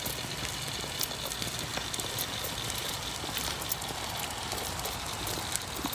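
Power wheelchair rolling along a concrete sidewalk: a steady rumble of tyres and drive motors with a few faint clicks.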